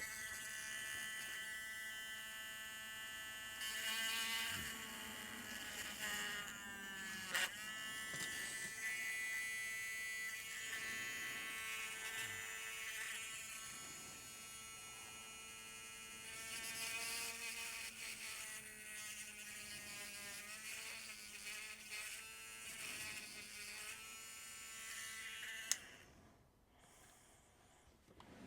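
Small handheld electric rotary tool or mini drill running on a plastic toy part, its high buzzing whine wavering in pitch as it bites and eases off. It stops abruptly near the end.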